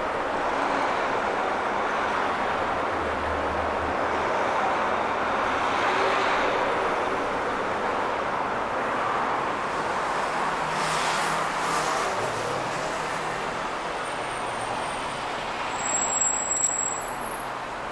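Urban road traffic noise: a steady rush of passing cars, swelling briefly about eleven seconds in.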